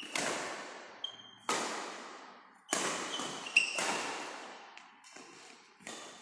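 Badminton rackets striking the shuttlecock during a rally: a string of sharp smacks about a second apart, each with a long echo in the large hall. Short sneaker squeaks on the court floor fall between the hits.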